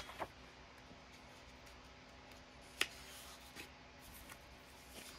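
Quiet room tone with a faint steady hum as sheets of scrapbook paper are handled on a table; one sharp click about three seconds in, followed by a softer tick.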